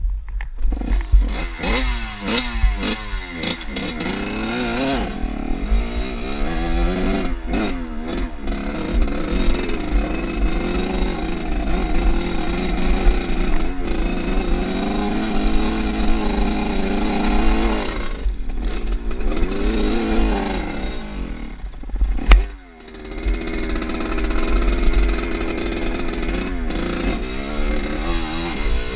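Off-road motorcycle engine being ridden hard, revving up and down over and over as the throttle is worked and gears change. Its pitch dips sharply about twenty-two seconds in, then picks up again.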